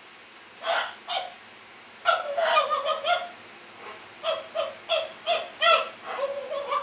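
African grey parrot calling in short bursts: two brief calls, a longer run of sounds about two seconds in, then a string of quick calls about three a second and a longer call near the end.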